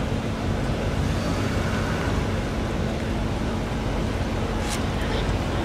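Truck engines running with a steady low rumble as an escort pickup and a tractor-trailer move off slowly; a brief hiss about three-quarters of the way through.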